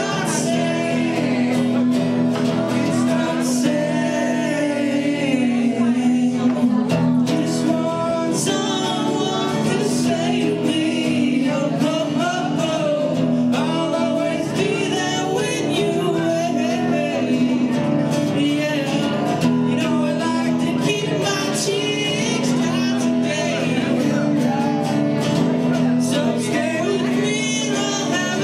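Live music: an acoustic guitar being played, with singing over it.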